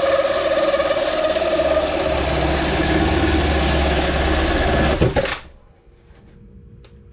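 Cordless drill spinning a hole saw through an ABS plastic speaker lid, a loud steady motor whine over the grinding cut, stopping suddenly about five seconds in.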